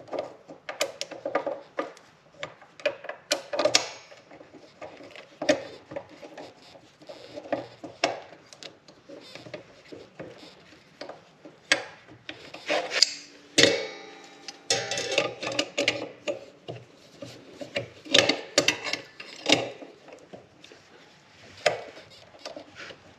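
Irregular metallic clicks, taps and scrapes as a steel motorcycle foot peg, its return spring and pivot pin are worked into the frame mount by hand, with a busier run of rattling about halfway through.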